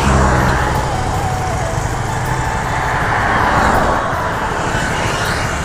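Scooter engine running, with steady rushing road and wind noise on the microphone.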